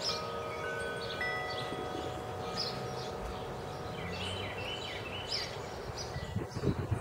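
Wind chimes ringing in the breeze: a struck note every second or so, each tone ringing on and overlapping the next. A few low thuds near the end.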